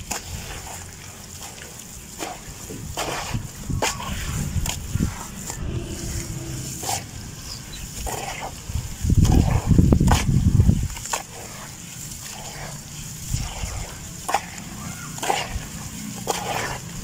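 Wet red dirt being squeezed and crumbled by hand in a bowl of water: irregular squelching, sloshing and crackling. A louder, deeper stretch comes about nine seconds in and lasts a couple of seconds.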